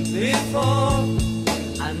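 Background music with a steady beat and a melody over sustained low notes.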